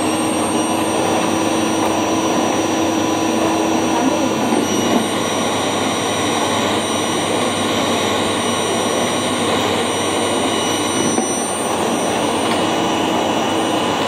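Hoover single-cyclonic bagless canister vacuum cleaner running at full speed, a steady loud rush of air with a high motor whine, as it is worked across a tiled floor. The whine shifts slightly about four seconds in and again near the end.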